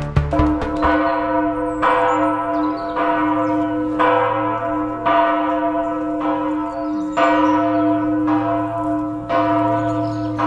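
A large church bell tolling, struck about once a second, each stroke ringing on over a steady low hum.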